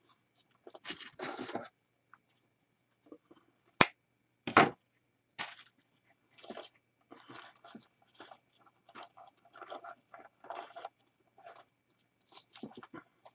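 Ribbon and artificial evergreen branches rustling and crinkling in short, irregular bursts as a bow is handled and tied into a wreath. A sharp click just before four seconds in and a knock just after are the loudest sounds.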